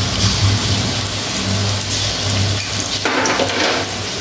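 Fried onions and a spoonful of ginger-garlic-chilli paste sizzling in hot mustard oil in an aluminium kadai, steadily, briefly louder about three seconds in.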